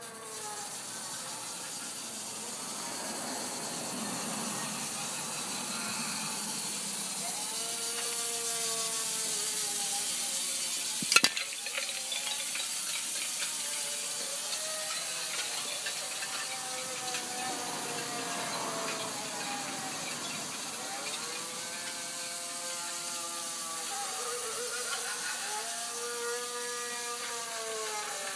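A steady mechanical rattling whir with a lot of hiss, switched on at the start, with faint tones that rise and fall through it and one sharp click about eleven seconds in.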